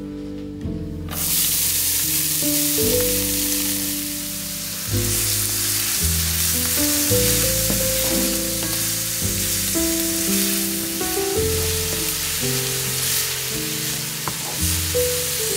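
Chopped onions sizzling as they fry in a pan, starting about a second in, while a wooden spatula stirs them. Background music plays throughout.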